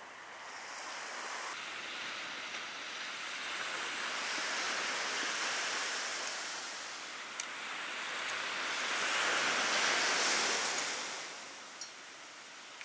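Surf washing onto a sandy beach, swelling and receding twice, with a few light clicks near the end.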